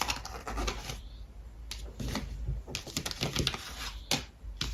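Tarot cards being handled and laid out on a table: clusters of light clicks and flicks.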